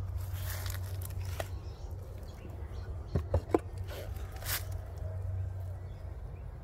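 Wooden observation-window cover on a Flow Hive being handled and taken off: a soft scrape, then three sharp wooden knocks in quick succession and one more click a second later, over a steady low rumble.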